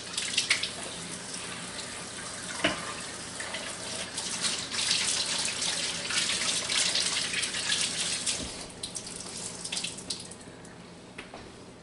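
Kitchen sink tap running while hands are washed under it, water splashing. The flow gets louder about four seconds in and dies away near the end, with a single knock about two and a half seconds in.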